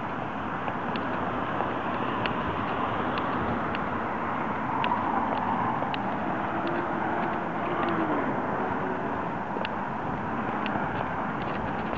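Steady city traffic noise from a nearby road, swelling as a vehicle passes about halfway through, with light ticks about once a second.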